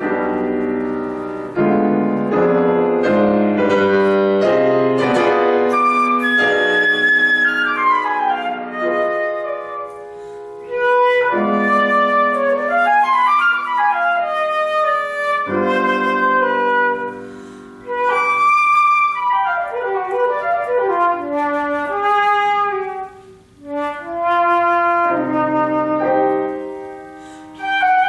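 Concert flute and grand piano playing a classical duet. The flute plays fast runs that sweep up and down over the piano accompaniment, with short breaths between phrases.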